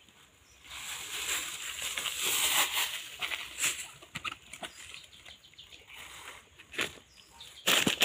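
Plastic rustling and crinkling with scattered light knocks as eggplants are picked out of a pile on a plastic sheet; a louder bout of handling near the end.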